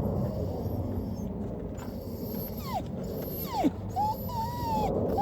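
Dog whining: two short whimpers falling in pitch, then a longer high whine held over the last second or so.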